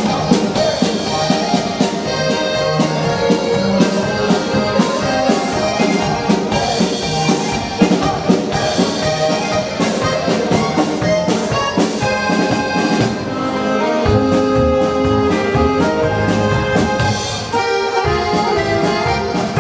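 Live dance band playing a Czech folk-pop song (lidovka): accordion over saxophones and a drum kit, with a steady beat. About two-thirds of the way through, the drums drop back and a deeper bass part comes in.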